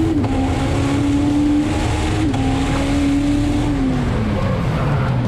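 Turbocharged Honda S2000's four-cylinder engine heard from inside the cabin, held at high revs with a small dip about two seconds in. Then the revs fall steadily through the last second or so as the car slows.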